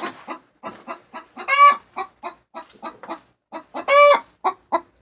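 Hens clucking in quick short notes, about three or four a second, with two loud, longer squawks, about a second and a half in and again about four seconds in. The hens are fighting over a nest, pecking each other in the face.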